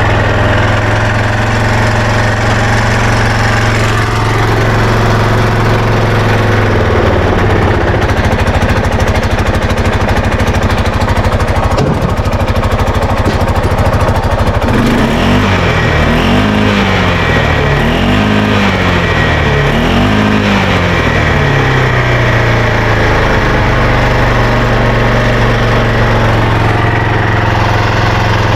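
Arctic Cat Prowler 500's single-cylinder four-stroke engine running after carburettor work: idling, then brought up to higher revs and held for several seconds, then revved up and down several times before settling back to idle. It is slow to idle down, and a loose, leaking exhaust makes it loud.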